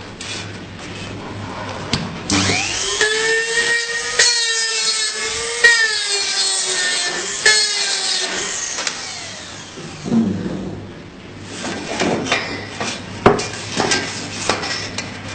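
Sheet-metal notching machine's motor running with a steady whine, which dips in pitch at three sharp clicks as it cuts notches into the metal strip. Before and after the whine come scattered metallic clicks and rattles.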